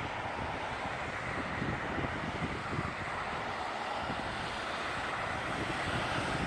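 Airbus A380's four jet engines at takeoff thrust, a steady rushing roar, with wind buffeting the microphone.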